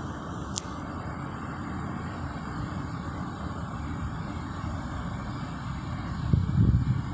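Steady low rumble of an electric passenger train approaching a station along the track, louder near the end, with a single sharp click about half a second in.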